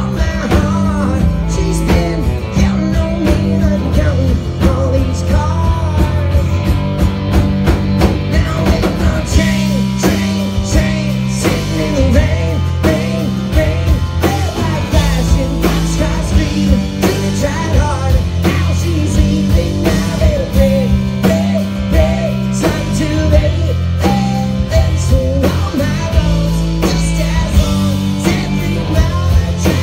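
Live rock band playing a song: electric and acoustic guitars, fiddle, bass and drum kit.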